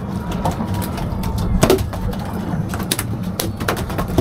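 A boat's engine running with a steady low hum, overlaid by irregular sharp knocks and clatter on deck.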